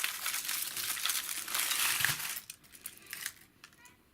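Foil wrapper of a chocolate surprise egg crinkling as it is pulled off, for about two and a half seconds, then a few small clicks as handling goes quieter.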